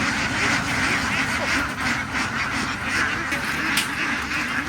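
A large flock of farm ducks quacking together, many calls overlapping without a break.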